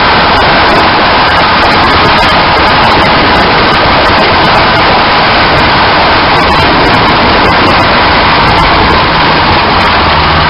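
Road and tyre noise with wind rushing through the wheel arch of a moving car, heard from inside the wheel well: a loud, steady rush with frequent small clicks throughout.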